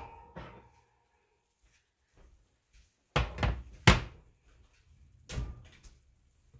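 A metal baking pan set down on a glass-top electric range: a clatter a little past three seconds in and a sharp clank just after. About five seconds in, a duller thud as the oven door is shut.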